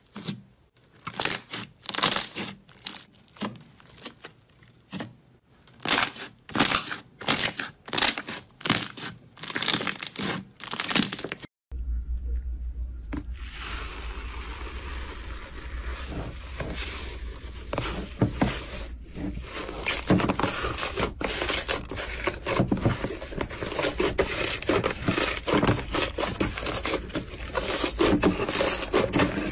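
Hands squishing slime. First a glossy purple slime gives sharp separate wet pops, about two a second. After a cut about 12 s in, a bubbly blue foam slime crackles and crinkles steadily as it is squeezed, over a steady low hum.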